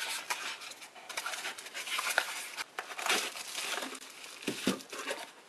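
Plastic packaging crinkling and rustling as a multimeter in its plastic bag is handled and pulled out of a cardboard box, with scattered small clicks and scrapes of the cardboard.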